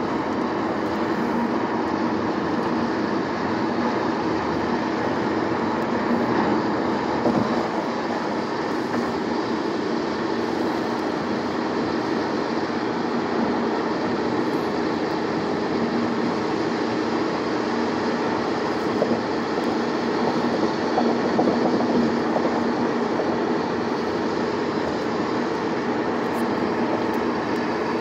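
Steady tyre and road noise heard inside a car's cabin on a freeway, an unbroken rumble with a low hum running through it.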